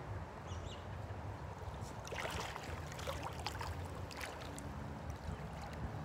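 Magnet-fishing rope being hauled in hand over hand from ditch water, with a couple of seconds of splashing and scraping about two seconds in. A low wind rumble runs underneath.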